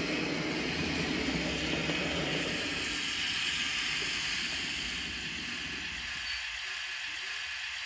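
H0-scale model train, a red regional multiple unit, running into the station with a steady hiss and rumble from its motor and wheels on the track. The rumble dies away about six seconds in as the train slows to a stop, leaving the hiss.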